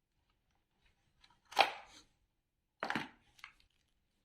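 Two sharp knocks about a second and a half apart, with a fainter click after the second: hands handling plugs and gear while disconnecting the power to a blown ATX power supply.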